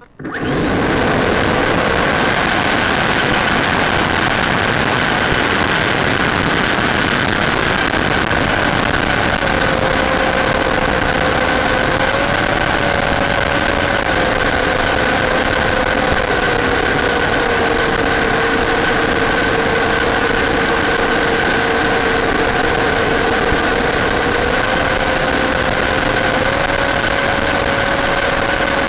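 RC model airplane's motor and propeller running steadily, heard loud through the onboard microphone with rushing air. The motor's pitch steps up and down slightly several times as the throttle changes.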